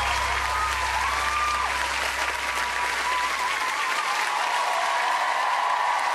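Large studio audience applauding steadily, with cheers and shouts over the clapping.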